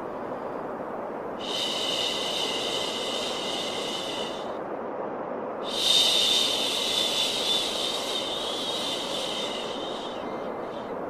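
Long, drawn-out "shhh" shushing sounds made to calm a baby, two in a row with a short pause between, the second longer and louder at its start, over a steady low white-noise hiss.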